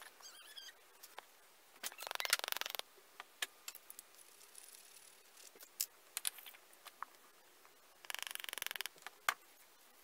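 Small clicks and taps of hands handling a wood block and a glue bottle on a workbench, with two short bursts of rapid crackling, about two seconds in and again near the end.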